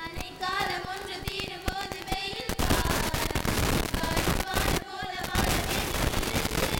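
A group of girls singing together into microphones, with sharp clicks; about two and a half seconds in, a loud, rapid crackling noise sets in and largely covers the singing.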